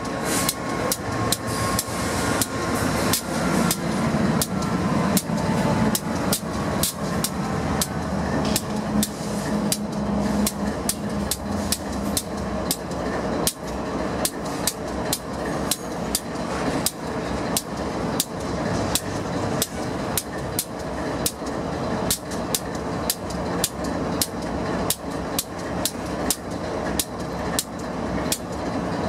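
A diesel-hauled intermodal stack train rolls past at speed, its wheels clicking sharply and evenly over the rail joints a few times a second. The lead locomotives' engines drone past in about the first ten seconds, with a falling pitch as they go by.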